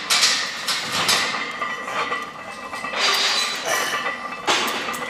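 Metal gym weights clanking and banging, several sudden crashes with a ringing tail a second or so apart.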